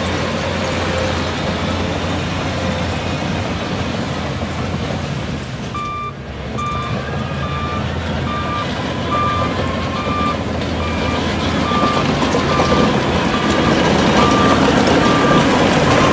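Heavy diesel earthmoving machinery running, and from about six seconds in a reversing alarm beeps steadily, about two beeps a second, while the engine grows louder toward the end as the machine reverses.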